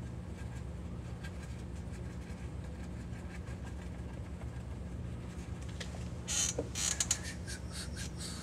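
Steady low hum, then about six seconds in a quick run of short scratchy strokes: a paintbrush scrubbing paint onto watercolour paper.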